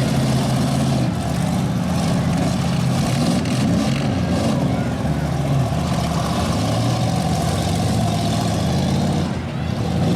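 Several demolition derby cars' engines revving hard together, pitch rising and falling as they spin and push in the mud.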